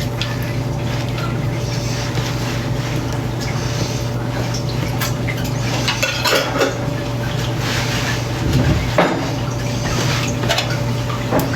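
Cutlery and dishes clinking and scraping as salad is served and eaten, in scattered knocks with a busier cluster about two thirds of the way through, over a steady low hum.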